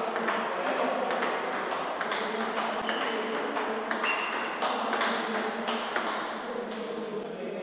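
Table tennis rally: the ball clicking in a quick, even rhythm, about two hits a second, alternating between the bats' rubber faces and the Butterfly Octet table top as forehand topspins are played and blocked.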